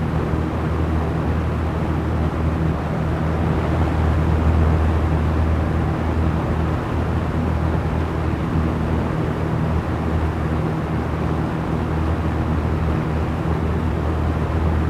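Small electric fan running steadily: an even rush of moving air over a low, constant motor hum.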